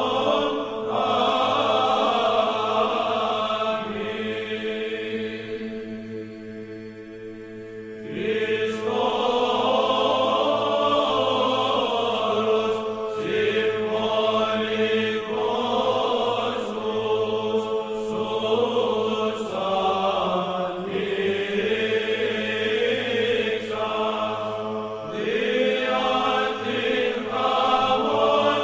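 Background music of voices chanting in long held notes over a steady low drone, dropping quieter between about four and eight seconds in before the voices come back.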